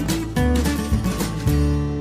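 Background music: a strummed acoustic guitar tune.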